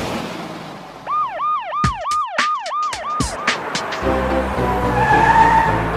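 Cartoon siren sound effect: a fast yelping wail, rising and falling about three times a second, with a few sharp clicks, that stops a little after three seconds in. About four seconds in, the instrumental intro of a children's song begins.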